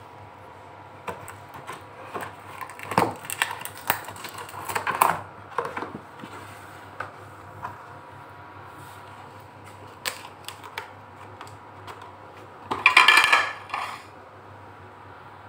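A cardboard cake box being opened and handled: scattered taps, scrapes and rustles, with a louder rustling scrape about thirteen seconds in.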